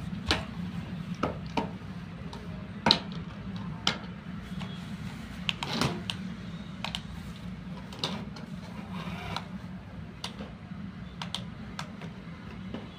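Irregular light clicks and taps from hands handling a plastic toy RC car and its remote, over a steady low hum.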